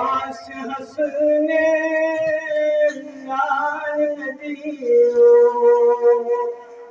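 Unaccompanied male voice singing a Kashmiri naat, drawing out long melodic notes with a long held note in the second half.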